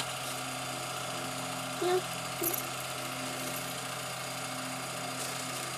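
A steady mechanical hum, with faint voices in the background and two brief louder voice sounds about two seconds in.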